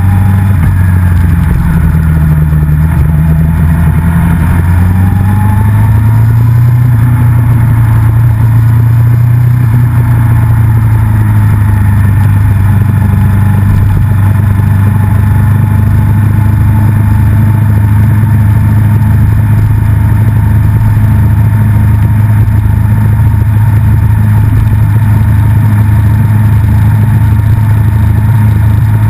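Race motorcycle engine running at low, steady revs, heard up close from a camera mounted on the bike as it rolls slowly along. The pitch rises a little over the first few seconds, then holds steady.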